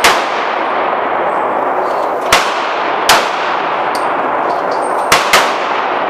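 Springfield XD pistol in .40 S&W fired five times: once at the start, twice about three-quarters of a second apart a little past two seconds in, then a quick pair near the five-second mark. Each shot echoes in the indoor range, and a few light clinks come between the shots.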